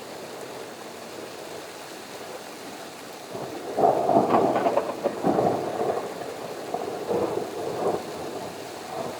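Steady rain during a thunderstorm. About four seconds in, a roll of thunder sets in and rumbles on in several swelling waves before fading back under the rain.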